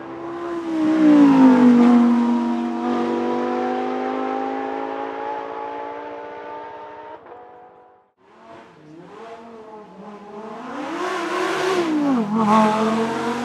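Lamborghini Huracán EVO's 5.2-litre naturally aspirated V10 passing at speed. Its pitch drops as it goes by, then climbs slowly as it accelerates away and fades. After a cut near the middle, another Huracán V10 revs up and down as it accelerates past, loudest near the end.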